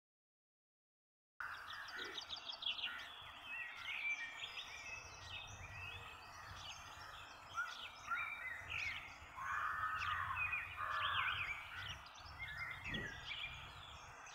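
Outdoor ambience of several small birds chirping and singing over a faint low hum, coming in after about a second and a half of silence.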